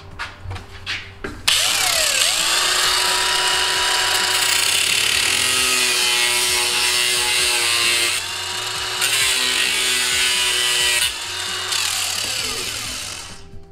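Angle grinder starting up about a second and a half in and cutting into a copper pipe coupling held in pliers, a loud steady whine over a grinding hiss. It eases off briefly twice, then spins down near the end.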